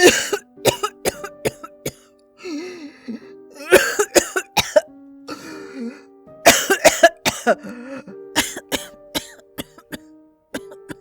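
A woman coughing in a series of fits, each a quick run of sharp, forceful coughs, with short pauses between the fits. Soft background music with held notes plays underneath.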